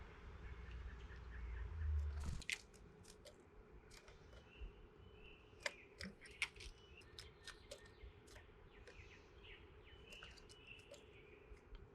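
Small birds at a backyard seed feeder: a scattered run of sharp clicks and taps from pecking and cracking seed, with short high chirps. A low rumble cuts off about two seconds in.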